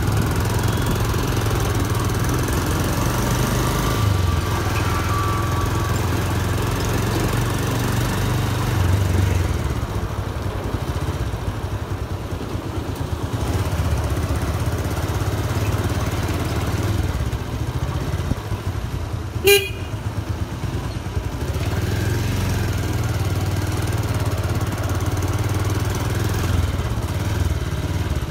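Motorcycle engine running at low road speed, its low note rising and easing as the rider opens and closes the throttle. One brief, sharp blip cuts in about two-thirds of the way through.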